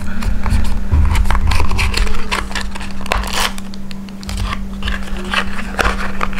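Paperboard box and small plastic bag being handled and opened: irregular rustling, crinkling and light crackles, with a few soft thumps, over a steady low hum.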